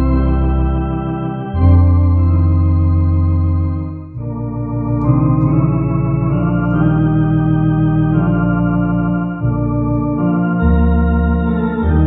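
MD-10 EVO two-manual electronic organ playing a slow baptism hymn in sustained chords, with low bass notes held and changing every few seconds and a brief lift between chords about four seconds in.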